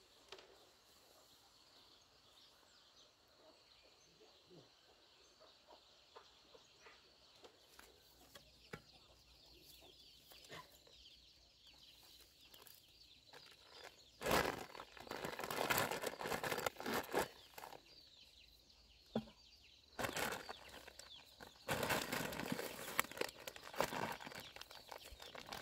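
A faint, steady high drone like insects. From about halfway, several loud stretches of rustling, scuffling noise break in.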